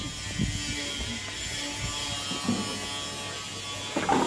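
A steady mechanical buzz with several tones in it, and a few dull low knocks in the first half.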